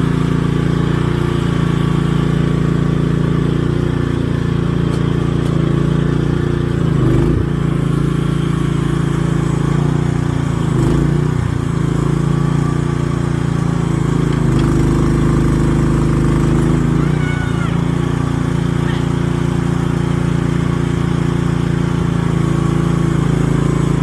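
A small engine running steadily, its note wavering slightly a few times.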